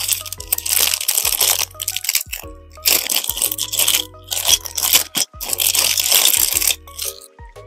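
Clear plastic bag crinkling loudly in several bursts as a small capsule-toy miniature is pulled out of it by hand.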